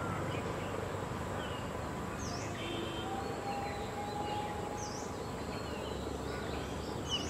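Steady outdoor background noise with a faint high whine, and about three faint, short bird chirps spaced a couple of seconds apart.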